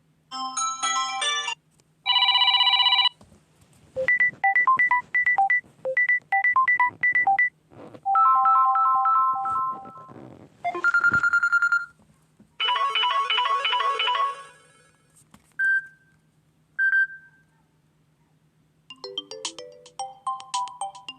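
Samsung Galaxy Tab A7 Lite tablet playing its stock ringtones one after another: about eight different short melodic chimes and jingles, each lasting a second to a few seconds, with brief gaps between them.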